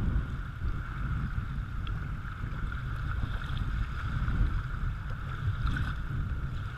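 Fast, choppy river water rushing around a kayak running shallow rapids, with a steady low rumble of wind on the microphone.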